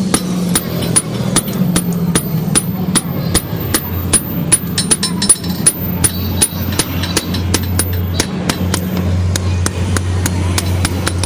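Hammer striking metal on an anvil: a fast, irregular run of sharp metallic blows, about four a second, each with a brief high ring, over a steady low hum.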